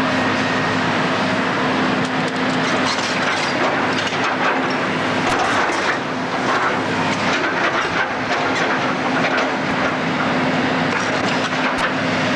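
Heavy demolition machine's engine running steadily, with continuous crunching and cracking of breaking building debris and a few sharp cracks near the end.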